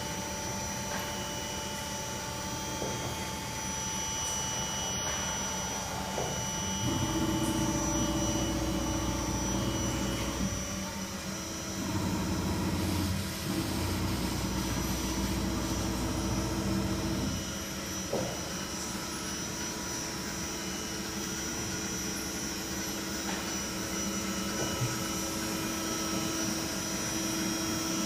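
Steady hum and whine of machine-shop equipment. A louder, lower drone comes on about a quarter of the way in, drops out briefly, then stops a little past the middle.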